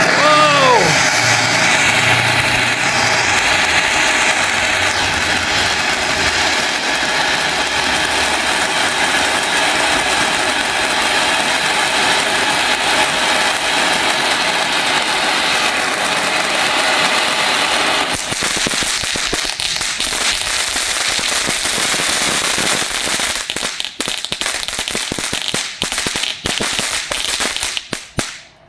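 Godzilla novelty firework from Miracle Fireworks' 'Who Win? Kong vs Godzilla' set, burning with a steady loud hiss and a short falling whistle at the start. From about two-thirds of the way in it breaks up into sputtering crackles and burns out at the end.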